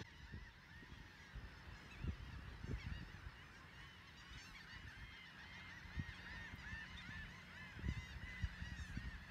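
Many seagulls calling over one another without pause, a dense layer of short arching cries, with a few low thumps on the microphone.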